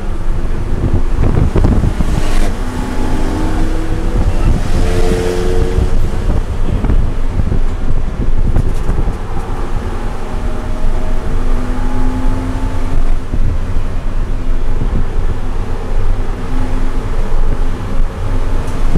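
BMW E90 330i's straight-six engine running hard under load, revs climbing from about 4,000 to over 6,000 rpm. It is heard from inside the race car's cabin, mixed with wind and road noise.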